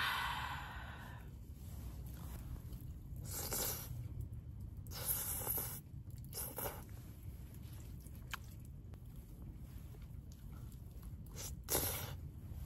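A person slurping and chewing noodles, with several separate noisy slurps over a steady low rumble.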